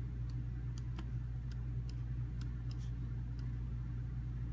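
Keys of a computer keyboard being pressed: light, irregularly spaced clicks over a steady low electrical hum.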